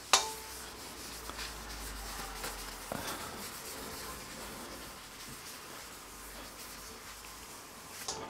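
Oiled kitchen paper rubbing over a carbon steel wok as it is given a light coat of oil, a faint scratchy wiping. Just after the start a sharp metal clink rings briefly, and a softer knock comes about three seconds in.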